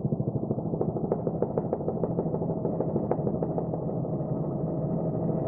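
Helicopter rotor and engine noise from the camera helicopter: a steady, rapid pulsing with a steady whine over it.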